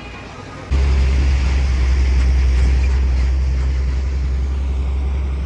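Loud, steady low rumble of a car on the move, starting suddenly about a second in.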